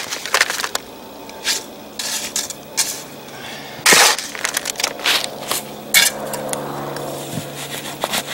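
Loose border stones clinking and knocking against one another and scraping as they are set by hand, in irregular sharp strikes, the loudest about four seconds in.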